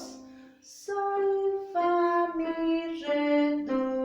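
A voice singing a descending scale in solfège, about five held notes stepping down one by one and ending on do. There is a quick breath just before, and a held note fades away at the start.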